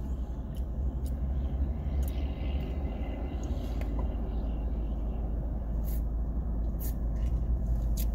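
Car engine idling, heard as a steady low rumble inside the cabin, with a few faint light clicks.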